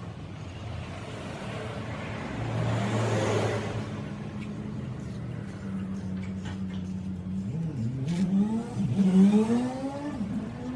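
Motorcycle engine running at a steady speed, then revved several times about eight seconds in, the pitch rising and falling with each throttle blip.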